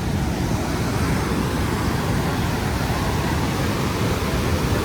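Steady, unbroken rushing noise, strongest in the low end.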